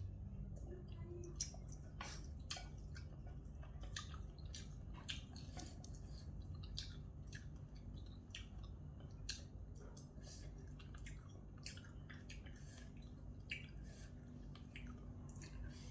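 A person chewing a glass noodle and seafood salad close to the microphone: a long run of small, wet mouth clicks and smacks over a steady low hum.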